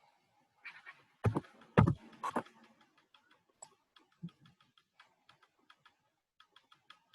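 Computer keyboard typing and mouse clicking: scattered key clicks, three heavier knocks about a second in, then a quick run of clicks near the end.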